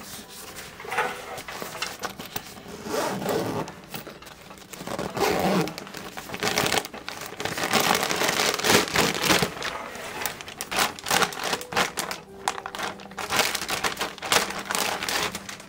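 Handling noise from a camera backpack and its packaging being unpacked: irregular rustling and crinkling with many small clicks and scrapes, over a faint steady hum.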